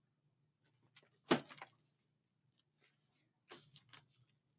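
A picture book being handled: a short knock about a second in, then a brief papery rustle as a page is turned near the end.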